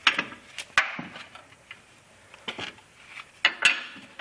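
Sharp metallic clinks and knocks of a large steel bolt being worked by hand through the coilover's lower bracket and the steering knuckle: a few strikes near the start, a quieter stretch, then more near the end.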